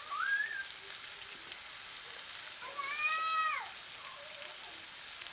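Low steady sizzle of chickpeas cooking in a clay pot over a wood fire. Over it come two high drawn-out calls: a short rising one at the start, and a longer, louder one about three seconds in that rises and falls.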